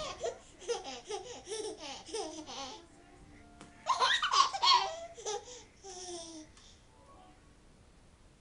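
Baby laughing in runs of short, quick laughs: a long run at the start, a louder peal about four seconds in, then trailing off to quiet near the end.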